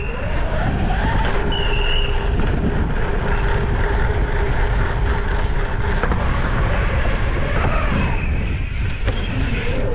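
Mountain bike ridden at speed: a steady rush of wind and tyre noise rolling over the course.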